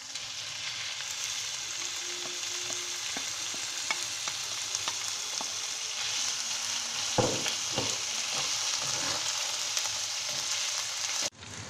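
Chicken breast meat sizzling in hot oil with fried onions in a frying pan, stirred with scattered clicks and knocks of a utensil against the pan. The sizzle cuts off abruptly near the end.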